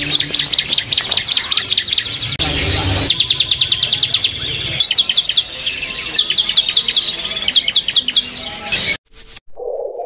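Small songbirds chirping in runs of quick, high repeated notes, several a second, with short breaks between runs. The chirping stops abruptly about nine seconds in.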